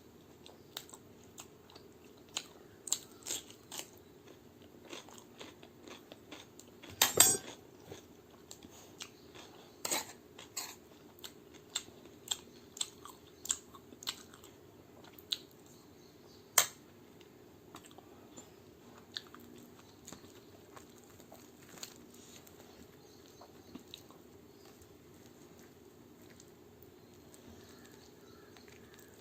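A person chewing and biting a meal of chole bhature with raw onion, chilli and cucumber: a run of sharp crunches and wet clicks, the loudest crunch about seven seconds in, growing sparse after about seventeen seconds. A faint steady hum sits underneath.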